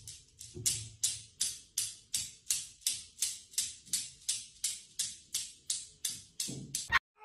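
Steel balls of a Newton's cradle clicking against each other, about three sharp clicks a second in an even rhythm; it stops abruptly near the end.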